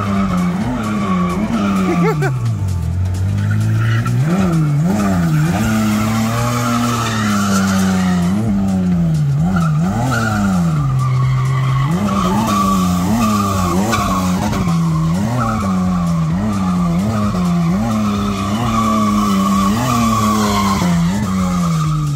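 Nissan R31 Skyline's RB30E straight-six revving up and down about once a second while the car spins donuts, with the rear tyres squealing steadily under wheelspin.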